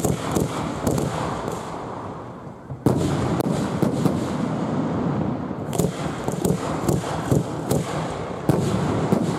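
Aerial fireworks shells launching and bursting, heard from close to the launch site. Sharp bangs and crackles sit over a rolling low rumble. A loud bang comes about three seconds in, and a quick run of bangs follows from about six seconds on.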